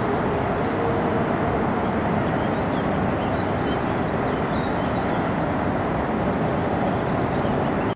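Steady outdoor background noise, an even rushing hum with no rhythm, with a few faint high chirps over it.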